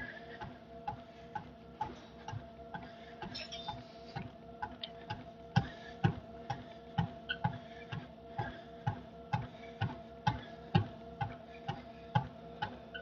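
Cardio machine in use: regular step or footfall knocks about twice a second over a steady machine hum. The knocks are faint at first and grow clearer about halfway through.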